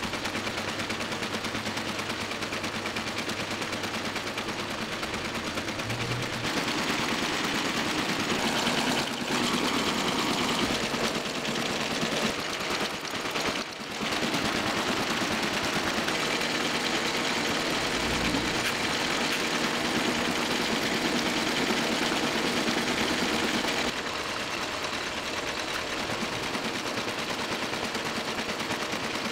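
Toko 810 small offset printing press running, a fast, even mechanical clatter as it feeds and prints sheet after sheet. It grows a little louder for a stretch in the middle.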